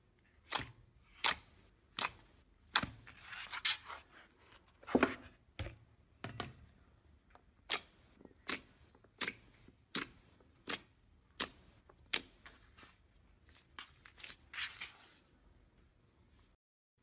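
Slime being handled, giving a series of sharp snapping pops, roughly one every three quarters of a second, with a couple of softer crackly squishes in between.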